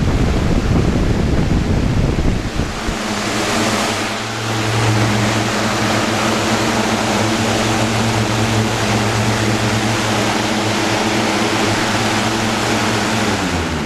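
2000 Galaxy box fan fitted with a thinner newer-model blade, running on high: a loud steady rush of air with a steady motor hum joining it about three seconds in. Near the end the hum drops in pitch and the sound starts to fade as the fan is shut off.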